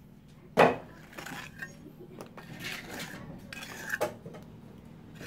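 A steel trowel knocks sharply once, about half a second in, then scrapes and smooths cement mortar on a concrete hollow-block wall, with small clinks of grit under the blade.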